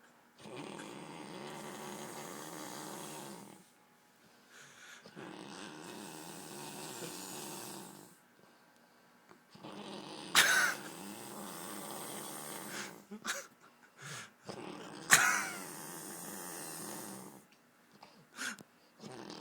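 A man snoring heavily: long rasping breaths of a few seconds each, with quiet pauses between them, broken by two sharp, loud snorts about ten and fifteen seconds in.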